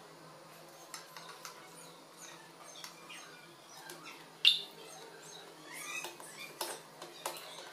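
Small screwdriver and fingers fastening a wire end under a screw on a foam-board traffic-light kit: faint scratching and light clicks, with one short sharp squeak about four and a half seconds in and a few fainter squeaks near six seconds.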